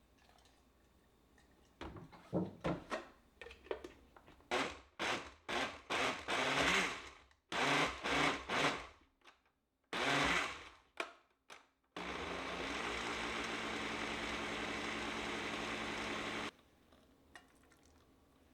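A run of short, sharp bursts of noise, then a small electric motor appliance running steadily for about four seconds before it cuts off abruptly.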